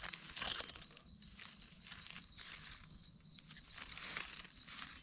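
Dry leaf litter rustling and crackling in short irregular bursts under gloved hands as small white mushrooms are picked from the forest floor. A faint steady high-pitched tone runs underneath.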